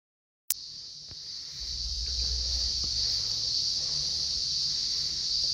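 Insects droning steadily at a high pitch, starting suddenly about half a second in after silence, with a low rumble underneath from about a second and a half in.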